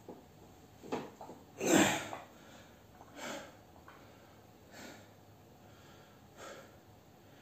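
A man's heavy breathing from exertion: short, forceful breaths roughly every second and a half, the loudest just under two seconds in.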